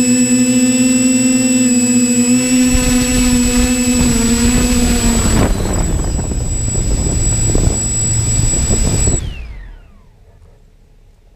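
Electric motors and propellers of a TBS Discovery Pro quadcopter, heard close from its onboard camera: a steady whirring hum with a high whine while hovering. The sound turns rougher and noisier as the quadcopter comes down and sets down on the grass. About nine seconds in the motors cut and spin down with a falling whine.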